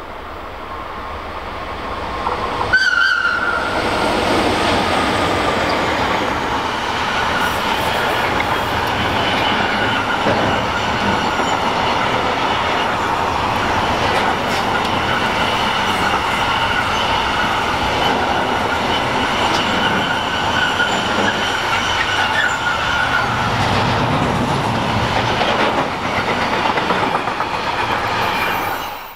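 Swiss Re 10/10 freight train, an Re 420 and an Re 620 electric locomotive working together, passing close by with a long intermodal train of container and trailer wagons. A brief sharp high tone comes about three seconds in as the locomotives pass. Then a steady rolling din of the wagons follows, with a thin high wheel whine over it, and it cuts off suddenly near the end.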